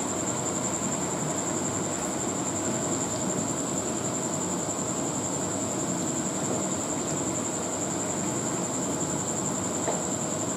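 A thick pea-and-potato curry (ghugni) simmering and bubbling in a nonstick pan on the stove, an even steady hiss with a thin high-pitched whine throughout. A wooden spatula stirs it in the second half.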